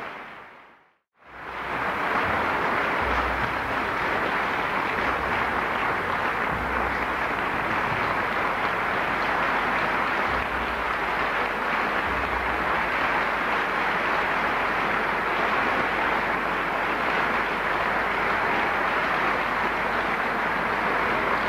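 Opera house audience applauding steadily. The sound fades out to silence just under a second in, then comes straight back at full strength.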